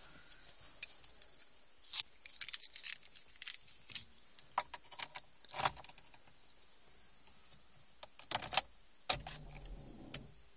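Car keys jangling and clicking in short, scattered bursts inside a parked car, the loudest clicks about eight and a half seconds in as the ignition is switched on.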